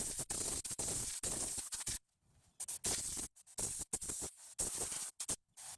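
Intermittent hissing and scraping bursts from cleaning the rusty parking-brake shoe contact surfaces on the backing plate, stopping and starting several times with a short pause about two seconds in.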